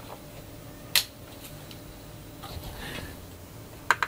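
Sharp little clicks of OO gauge model railway rolling stock and couplings being handled, over a faint low hum. There is one click about a second in and two quick clicks near the end as a hand works at the couplings.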